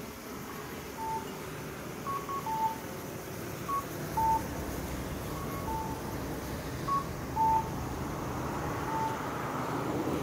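Short electronic beeps at two pitches, often a higher note followed by a lower one, repeating every second or two over steady background noise.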